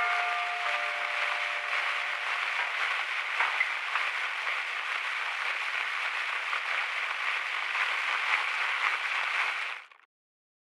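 A dense, steady crackling hiss, with a few ringing tones fading out in the first second or so; it cuts off abruptly near the end.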